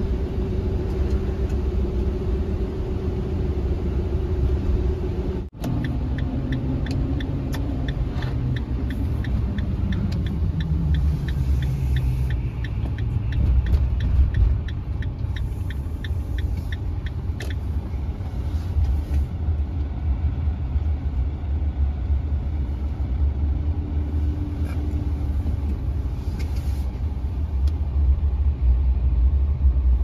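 Camper van driving on a slushy road, heard from inside the cab: a steady low engine and road rumble, the engine note falling as the van slows. For about ten seconds in the middle the turn signal ticks about twice a second as the van turns into a parking lot.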